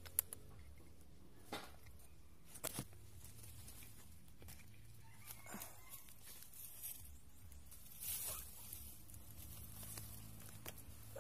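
Faint scattered crackles and snaps of dry twigs and brush over a low steady hum, with one short falling animal call about halfway through.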